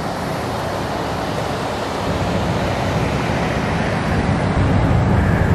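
Steady rushing of wind on the microphone over a background of traffic. A low rumble grows louder from about two seconds in.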